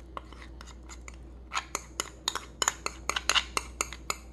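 Metal spoon scraping and clicking against a small ceramic dish as thick gochujang is scraped out of it: scattered light clicks at first, then a quicker run of scrapes and clinks from about a second and a half in.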